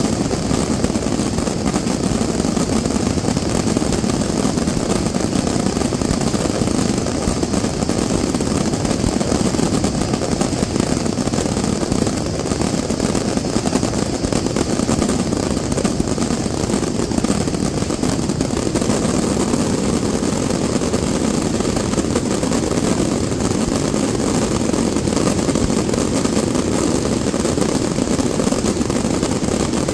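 Fireworks display firing a dense, unbroken barrage of rapid reports that merge into a steady rumble, with no single bang standing out.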